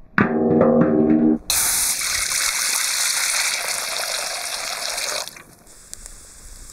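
A large metal wok lands on the stones of a fire hearth with a clang and rings for about a second. Then a stream of water pours and splashes into the wok for about four seconds and stops.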